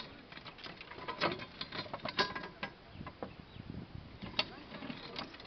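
Irregular clicks and knocks from a steel pipe-joining clamp frame being handled and worked on corrugated HDPE pipe, as the spigot end is drawn into the socket.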